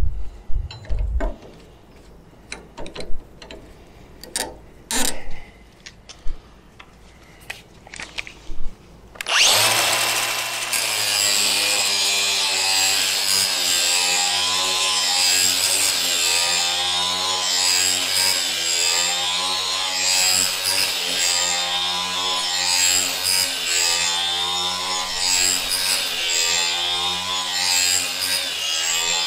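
A few clicks and knocks as a steel lawn mower blade is handled. Then, about nine seconds in, an angle grinder starts up and grinds along the blade's cutting edge, running steadily with a whine that wavers in pitch as it bites into the steel.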